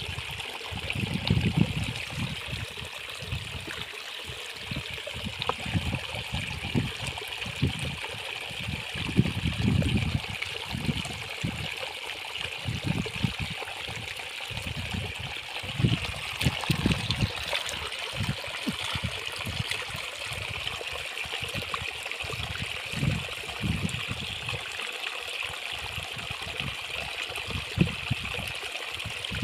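Water welling up and trickling steadily into a shallow muddy puddle, a continuous running, gurgling sound, with irregular low bumps and splashes scattered through it.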